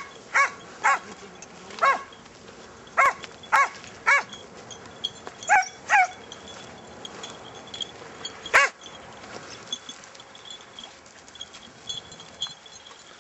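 A hare-hunting hound barking in short single barks, about nine in all in irregular clusters over the first nine seconds, then quiet.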